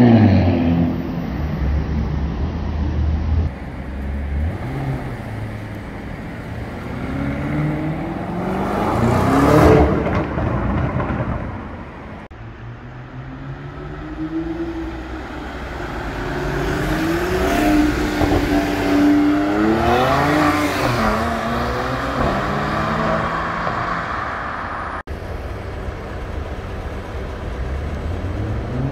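Supercar engines accelerating hard in several short clips: loud engine notes sweeping up and falling away as cars pass, loudest at the start and about a third of the way in. In the middle one car's engine note climbs in steps through the revs.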